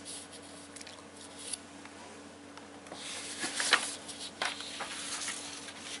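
Paper rustling as a written sheet is handled and moved off for a blank one: scattered rustles and crinkles, loudest about three and a half seconds in.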